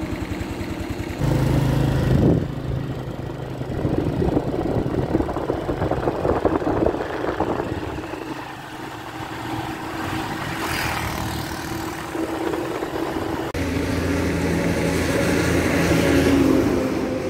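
Small motor scooter engine running, with wind and road noise while riding; the sound changes abruptly about a second in and again near the end.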